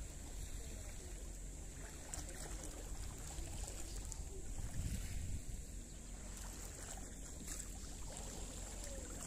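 Wind noise on the microphone over a calm sea, with a faint steady high-pitched whine and a few faint clicks.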